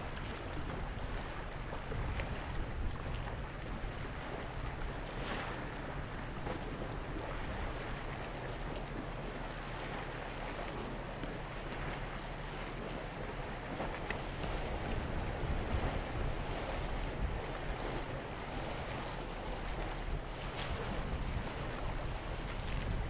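Wind buffeting the microphone over a steady wash of harbour water, a low rumbling noise with no clear engine note.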